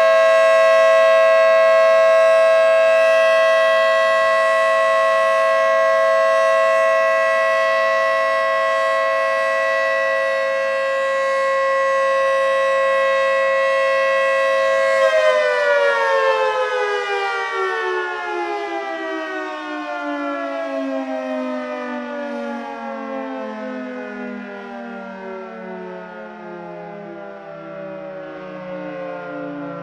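Federal Signal 2T22B two-tone mechanical warning siren sounding its steady alert signal, a held chord of two tones. About halfway through it is switched off and winds down, its pitch falling steadily as the rotors slow.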